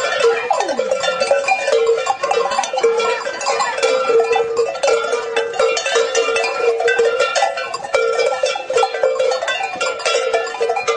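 Metal bells worn on a costumed village mummer's body clanking continuously as he walks, over a steady ringing tone.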